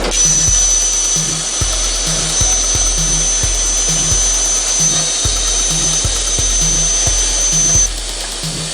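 Background music with a steady beat over the hiss of a plasma cutting torch, with a high steady whine that cuts off about a second before the end.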